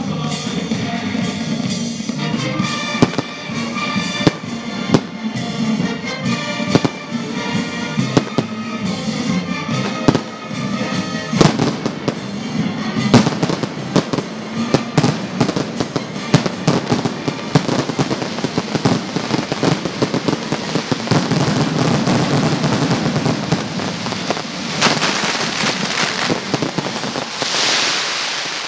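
Fireworks display: aerial shells bursting with sharp bangs, building after about twelve seconds into a dense crackling barrage of many rapid reports. Near the end, spark fountains give a loud rushing hiss.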